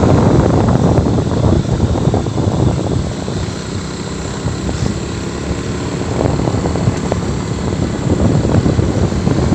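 A vehicle engine running on the move, with wind buffeting the microphone; the sound eases a little in the middle and picks up again near the end.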